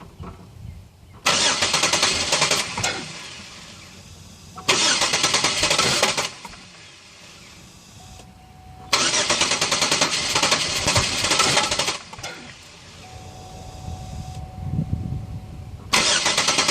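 Car engine being cranked over by its starter in four separate tries, each lasting one to three seconds, and not catching: a crank-no-start.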